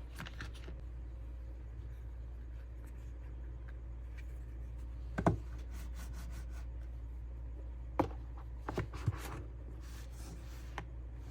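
Hands handling an Apple Magic Mouse and its packaging: light rubbing and scraping, with a sharp click or knock about halfway through and a quick cluster of three or four more a few seconds later, over a steady low hum.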